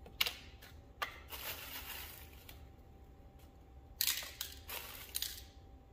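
Tabletop handling noises: a few sharp clicks and rustles, and about four seconds in a louder spell of clicking and rattling as a small plastic cup is handled on a glass-topped digital scale.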